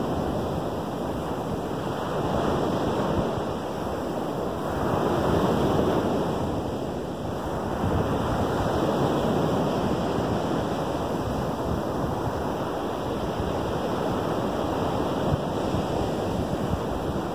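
Lake Michigan surf breaking on a sandy beach, a steady wash of waves that swells and eases every few seconds.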